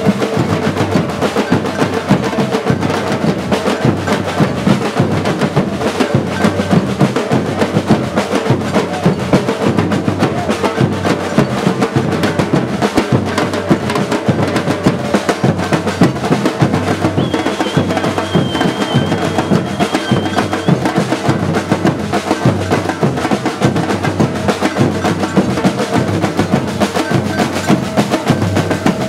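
Batucada percussion group drumming a dense, steady rhythm on many drums at once.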